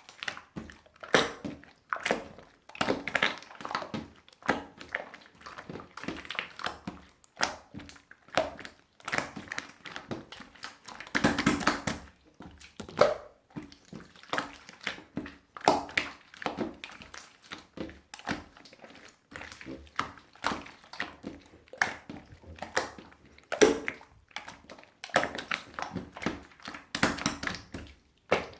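Hands squishing and poking a melted, runny opaque slime: an irregular run of short sticky squelches, clicks and small pops, with a longer squelch about eleven seconds in.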